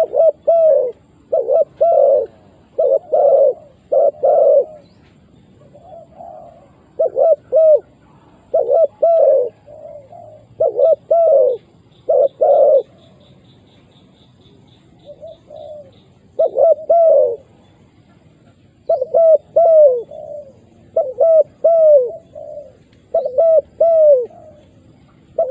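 Spotted doves cooing: repeated short phrases of falling coos, each phrase a few notes long, with pauses between them.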